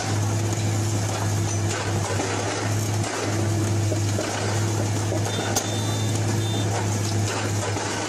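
Track-laying machine's engine running steadily with a low drone under constant mechanical noise. A short high beep sounds about five and a half seconds in.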